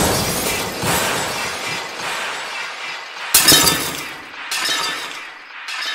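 Experimental noise-collage sound: a sudden harsh crash of noise at the start that fades away over about three seconds, a second sharp crash about three and a half seconds in, and a shorter burst about a second later that stops near the end.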